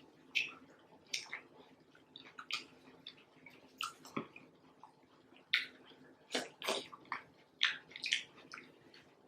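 Close-up wet mouth sounds of eating: short, irregular smacks and clicks of chewing and lip-smacking on saucy seafood-boil food.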